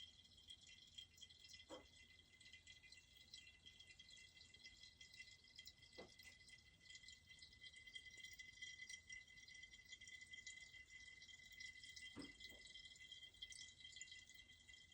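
Near silence: a faint steady high hiss and thin whine with fine crackling, broken by three soft knocks.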